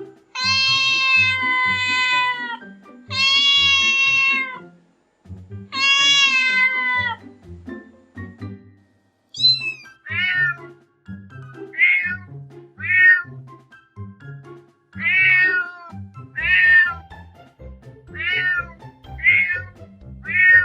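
Cats meowing: three long, drawn-out meows in the first seven seconds, then a run of short, higher meows about one a second, over background music.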